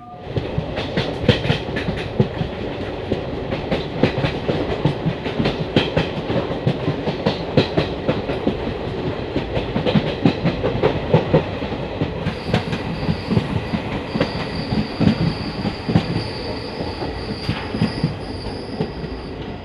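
Passenger train coaches running on the track, heard loud from an open doorway: a steady rumble of wheels on rail with many sharp clicks and clatters over the joints. About two thirds of the way in, a steady high-pitched squeal joins and holds on.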